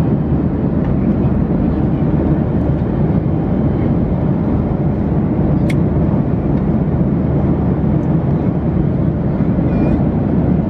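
Steady low rumble of air and engine noise inside the cabin of a Boeing 737-800 airliner in flight, with a faint click about halfway through.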